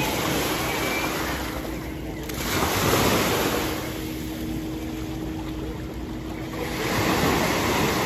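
Small sea waves breaking and washing up a sandy beach, swelling three times, with a faint steady low hum under them that stops near the end.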